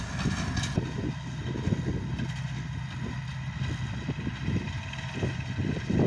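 Marshall 702 tractor's diesel engine running steadily under load as it pulls a small square baler.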